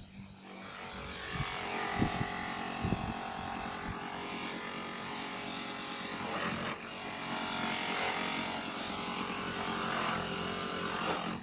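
A small electric power tool running steadily under load, with a buzzing motor, cutting off suddenly at the end.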